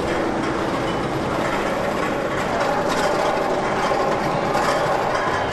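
Roller coaster train and track machinery of Intimidator 305 clattering and clicking steadily as the train moves along its track.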